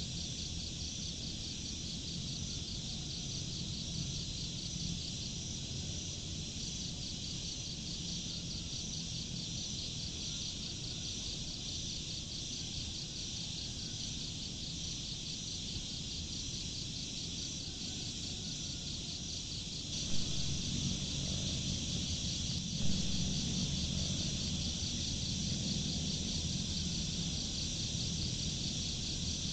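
Crickets chirping in a steady, fast-pulsing chorus over a low rumble. About two-thirds of the way through, the rumble grows louder and a couple of brief knocks are heard.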